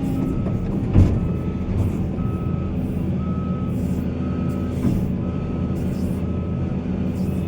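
Reversing alarm on a heavy mining vehicle beeping about once a second over a steady diesel engine drone, with a single thump about a second in.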